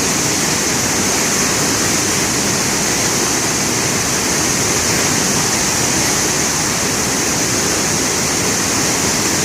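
Floodwater rushing in a swollen river: a loud, steady rush of water that does not change.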